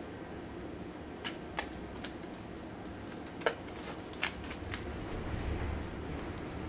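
A kitten's claws and paws scratching and scrabbling on a cardboard box as it moves about inside: a few short, sharp scratches and taps, the loudest about three and a half seconds in, over a steady low hum.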